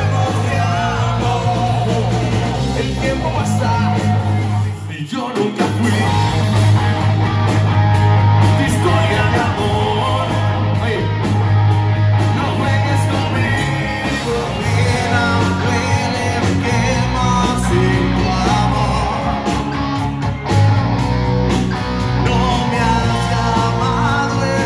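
Live band with a male lead singer, electric guitars, bass and drum kit, playing a song, with a brief break in the bass and drums about five seconds in.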